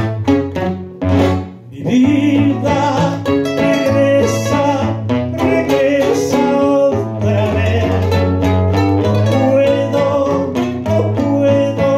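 Three acoustic guitars strumming and picking a song. Men's voices come in singing over them about two seconds in, after a brief pause.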